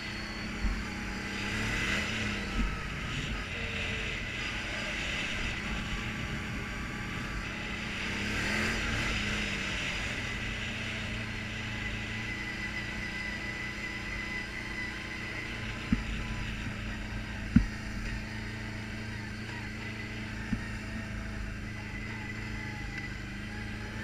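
ATV engine running under way, with tyre noise on a dirt trail. The engine swells up and back down twice, around 2 and 9 seconds in, and a few sharp knocks come later, the loudest about two-thirds of the way through.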